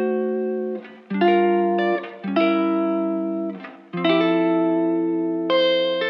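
Background music: a guitar playing chords, each struck and left to ring out before the next, a new chord about every second or so.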